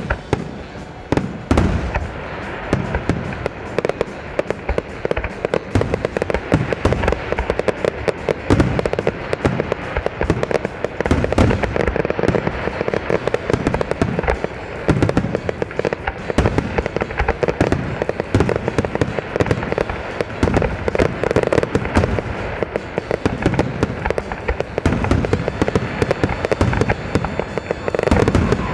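Fireworks display going off in rapid, near-continuous succession: many bangs and crackles a second with hardly a break.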